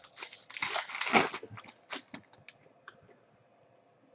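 Crinkling and tearing of a trading-card pack wrapper being ripped open, dense for about a second and a half, then a few light clicks and rustles as the cards are handled.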